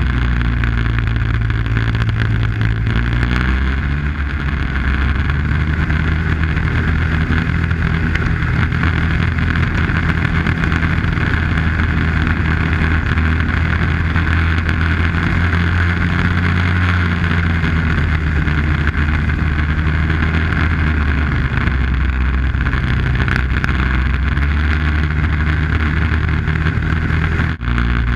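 Arctic Cat snowmobile engine running steadily under way on the trail, its pitch rising and falling with speed. The sound breaks off for an instant near the end.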